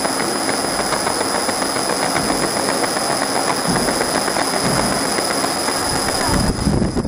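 CO2 laser marking machine running while it engraves wood: a steady mechanical hiss with a thin high whine and fine rapid ticking. Near the end the high whine drops away and a lower rumble takes over.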